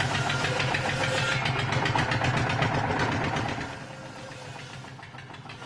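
A machine's engine running with a fast rattle. It is loud for the first three and a half seconds, then drops to a much lower level.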